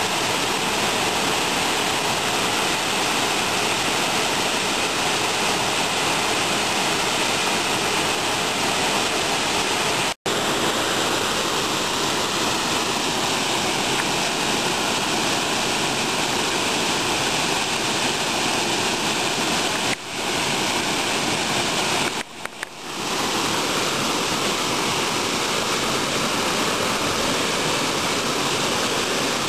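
Steady rushing of a tall waterfall, an even wash of water noise. It cuts out for an instant about ten seconds in and dips briefly twice more later on.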